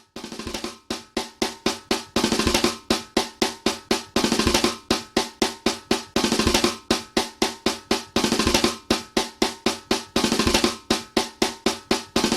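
Hip hop beat intro: a programmed drum pattern of rapid, evenly repeated snare hits and rolls over a sustained pitched layer, fading in over the first two seconds.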